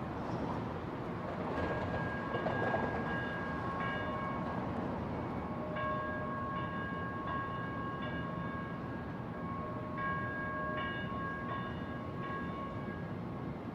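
Small electric motor in a metal toy robot running, jiggling and rattling the metal body. A whining tone keeps cutting in and out, in stretches of a second or two.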